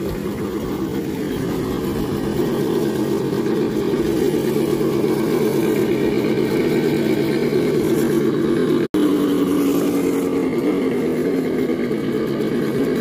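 Scale RC crawler's electric motor and geartrain whining as it drives, the pitch wavering up and down with the throttle. The sound drops out for an instant about nine seconds in.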